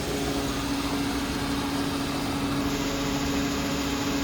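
Petrol station fuel dispenser running while filling a car's tank: a steady hum over a rushing hiss.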